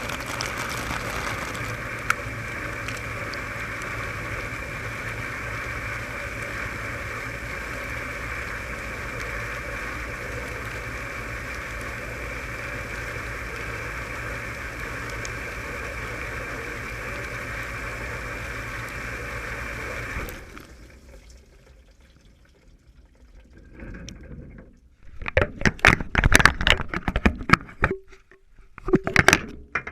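Dishwasher running, with a steady rush of water and a low hum. It stops about two-thirds of the way through, and after a few seconds of near quiet come loud, irregular knocks and clatter.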